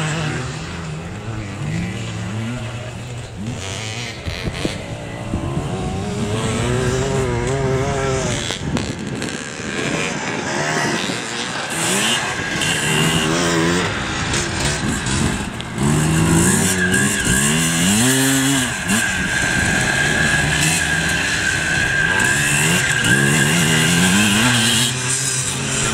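Vintage enduro motorcycle engines revving up and down as the bikes accelerate and shift on a dirt course, the pitch rising and falling again and again.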